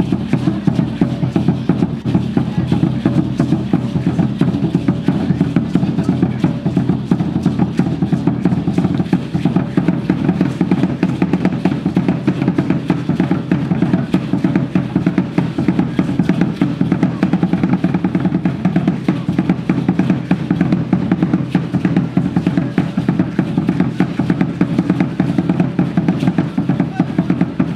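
Fast, steady drumming on a large upright Aztec drum (huehuetl) accompanying the dance, the beats running on without a break.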